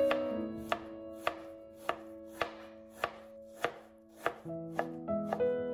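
Kitchen knife shredding pickled Chinese cabbage on a cutting board: a crisp knock of the blade on the board about every 0.6 seconds, ten or so strokes in a steady rhythm. Soft background music with held notes runs underneath.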